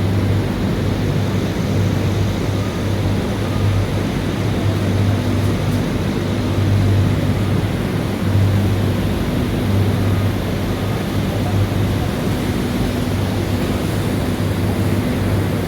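Steady machine noise with a low hum that swells and fades every second or two.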